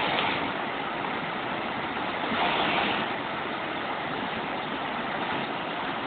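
Small waterfall pouring into a pool: a steady rush of falling water.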